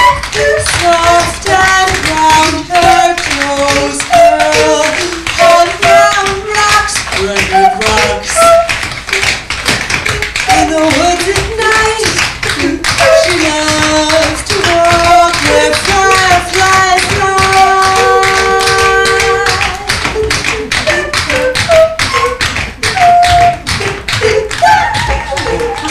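Several tap dancers' shoes striking a wooden stage floor in rapid, dense rhythms. Under the taps runs music with a melody of held and slightly bending notes.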